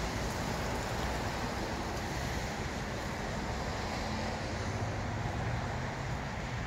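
Steady car noise: an even low rumble with a hiss on top, without a break or change.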